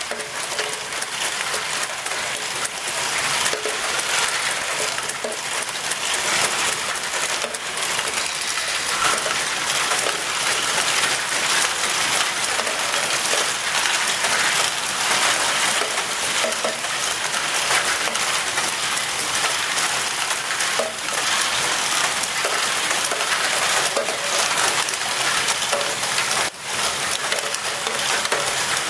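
Large Lego ball-transport machine (Great Ball Contraption) running: many small plastic balls rolling and clacking through its ramps, chutes and motor-driven Lego mechanisms, a dense, steady clatter of countless small clicks.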